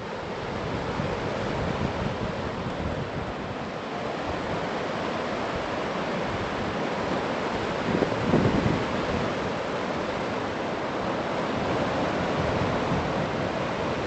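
Shallow river water rushing over flat bedrock rapids, a steady rush. Wind buffets the microphone briefly about eight seconds in.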